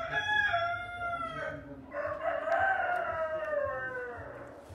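A rooster crowing twice. The second crow is longer and sinks in pitch as it trails off.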